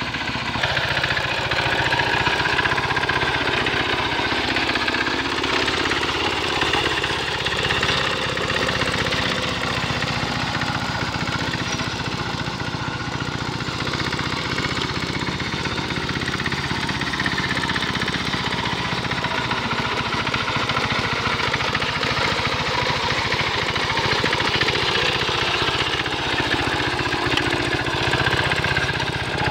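Two-wheel hand tractor's small single-cylinder engine running steadily under load as it drags a harrow through the paddy mud.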